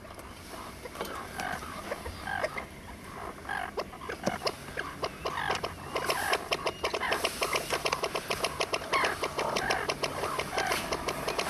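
Breeding colony of pied avocets calling: short repeated yelping calls, scattered at first, then a dense chorus of rapid calls from many birds from about four seconds in.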